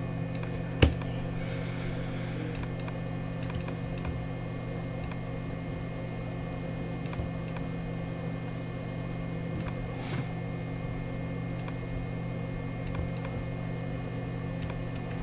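Sparse, irregular clicks of a computer mouse and keyboard, the loudest about a second in, over a steady low hum.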